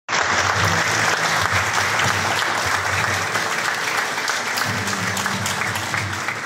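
Large audience clapping steadily in a big hall.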